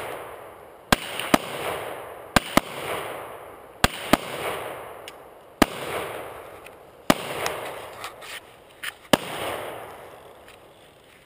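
Handgun shots, about nine, fired at uneven intervals, some in quick pairs, each followed by a long echo that dies away over about a second.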